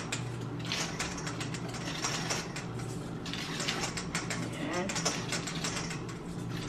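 Wire whisk beating cake batter by hand in a stainless steel bowl: rapid, continuous clicking and scraping of the wires against the metal. A steady low hum runs underneath.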